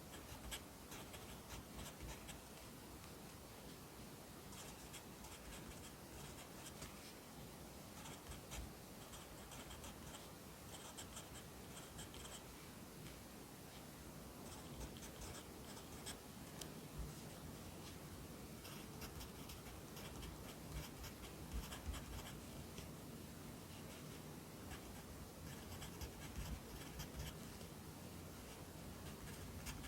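Pencil writing Korean characters on paper: quiet, irregular runs of short scratching strokes with brief pauses between them.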